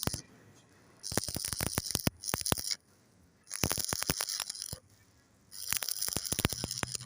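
Electric arc welding on a vertical joint: the arc crackles and sizzles in four short runs of about a second each, with brief pauses between them as the arc is broken and struck again.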